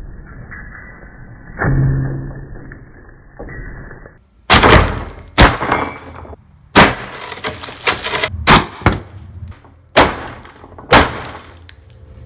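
A bag of tortilla chips on a plywood table being struck hard with a heavy object, crushing the chips inside: about eight loud blows, roughly one a second, starting about four seconds in. Before that, a single muffled thump.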